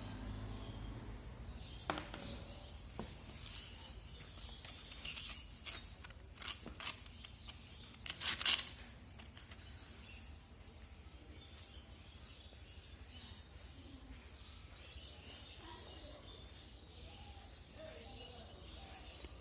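Quiet background with faint short bird chirps. A motor hum dies away at the very start, and there are sharp clicks about two and three seconds in. A brief harsh noisy burst about eight seconds in is the loudest sound.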